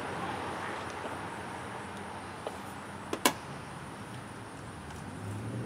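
A metal spoon stirring smoked vegetables in a foil pan, with a couple of sharp clinks about three seconds in, over a steady background hiss.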